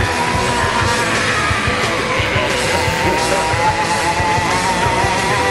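Rock song with guitar and drums, a long wavering note held through most of it.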